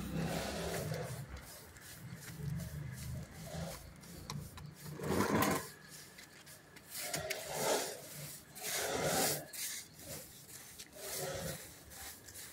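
A hand tool rubbing across a surface in separate strokes, one every second or two, with a low steady hum under the first few seconds.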